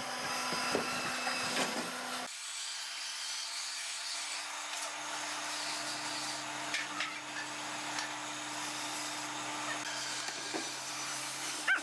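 Wooden panels being handled and shifted on a workbench, with scattered light knocks and rubbing. About two seconds in, the sound changes abruptly to a thinner background with a low steady hum underneath.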